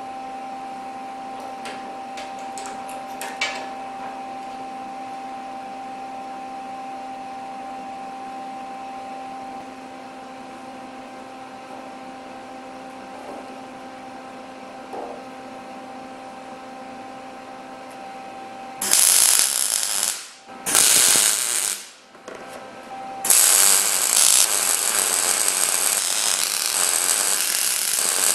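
MIG welding on heavy steel: two short welds about nineteen and twenty-one seconds in, then a continuous loud hissing weld from about twenty-three seconds on. Before the welding, a steady machine hum with a few clicks about three seconds in.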